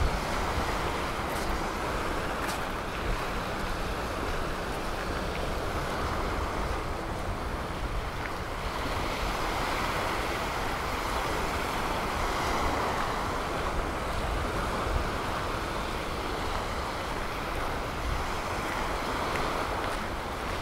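Steady rush of Gulf surf and wind, with wind on the microphone.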